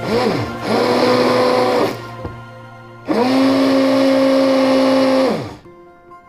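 Electric kitchen blender running, blending melon, banana and apple with water. It runs in two spells about a second apart; the second lasts about two seconds and winds down near the end.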